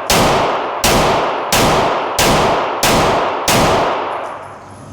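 Handgun fired six times in a steady string, about 0.7 s apart, each shot trailing off in a long echoing tail. The pistol is fitted with a Radiant Afterburner.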